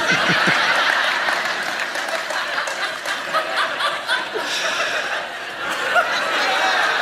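A church congregation laughing at a joke's punchline: a large crowd's laughter, many voices at once.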